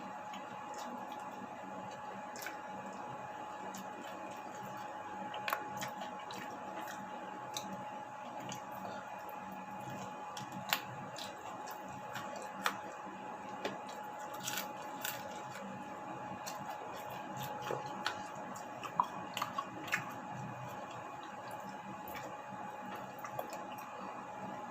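Close-up eating sounds: food being chewed with wet squishing and scattered short clicks and taps, over a steady background hum.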